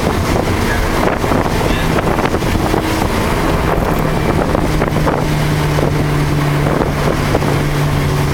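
Car engine running under steady throttle on a race track, heard from inside the cabin over continuous road and wind noise.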